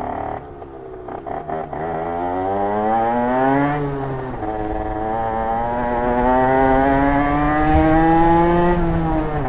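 Rieju RS2 50 moped's two-stroke 50cc engine with custom exhaust accelerating through the gears. The revs fall away about half a second in, then rise, drop at a gear change about four seconds in, climb slowly again and ease off near the end.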